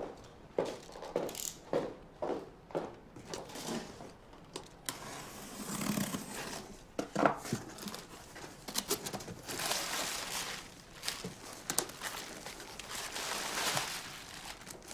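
A parcel being unpacked: packaging crinkling and rustling, with tearing and a run of small knocks and clicks.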